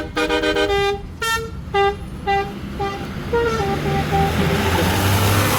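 Tour bus 'telolet' multi-tone horn playing a fast run of short notes that slows to single spaced toots, then a few longer held notes. Near the end a rising rush of noise with a low engine drone takes over.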